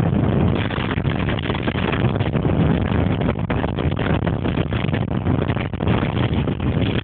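Wind rushing over the microphone of a camera carried by a skier going fast downhill, mixed with skis hissing and scraping over packed snow. A loud, steady roar with brief flickering dips.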